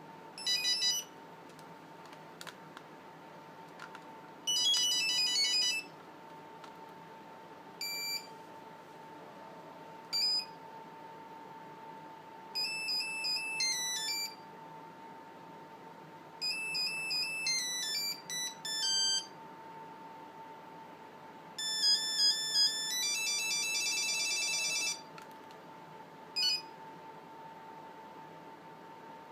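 Nokia 5510 mobile phone playing its monophonic beeping tones one after another: about nine short melodic patterns, each under a second to about three seconds long, separated by brief pauses, as different tones are tried in turn.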